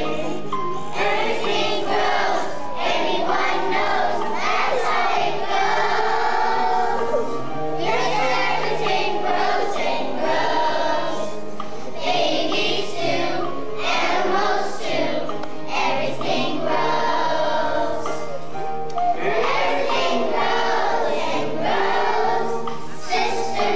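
A kindergarten class of young children singing a song together as a choir.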